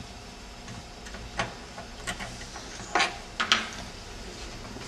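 A cover screw being turned out by hand at the base of an Interlab laboratory analyser: scattered small clicks and taps, the loudest two about three seconds in, half a second apart.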